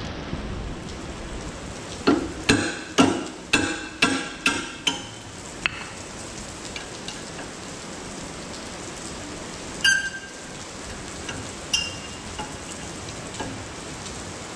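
Heavy rain falling steadily. Over it come sharp metallic clinks with a ringing tone: about six in quick succession starting about two seconds in, then two more near the end.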